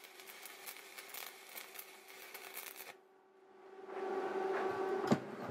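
Arc welder crackling and spitting as a bead is laid on a steel rudder-iron strap, run to pull the strap upward with heat; the arc stops about three seconds in. A steady hum then builds, and there is a sharp knock near the end.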